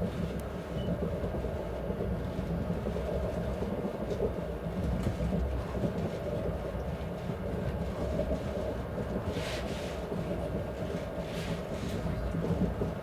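ES1P Lastochka train, hauled by a TEP70BS diesel locomotive, running at speed along the track: a steady low rumble of wheels on rails, with two short hisses about three-quarters of the way through.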